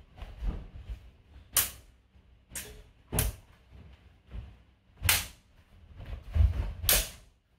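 Short rapier and spadroon blades clacking together in sparring: about five sharp, brief blade contacts spread through the exchange, with low thuds of footwork on the floor mats, the loudest thud about six and a half seconds in.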